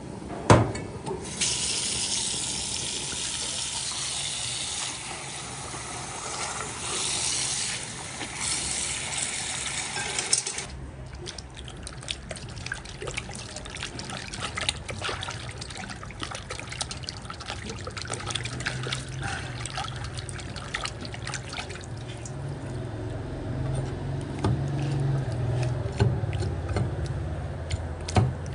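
A tap runs into a steel bowl for about nine seconds and then cuts off abruptly, just after a sharp metal knock. Then comes irregular splashing and sloshing as boiled pork stomach is rubbed and rinsed by hand in the bowl of water. A low steady hum comes in during the second half.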